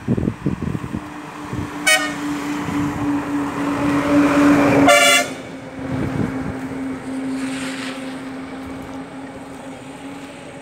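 A motor vehicle passing and sounding its horn twice: a short beep about two seconds in and a second one about five seconds in as it goes by. Its engine and road noise build up to the second beep, then fade away.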